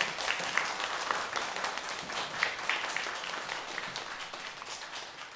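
A small audience applauding at the end of a string orchestra performance, dense hand-clapping that slowly fades toward the end.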